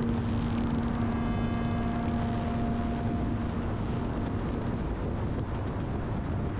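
Wind and tyre noise of a car driving at road speed, heard from a camera mounted on its roof, as a steady rushing noise. A steady low hum runs through the first five seconds or so, then fades.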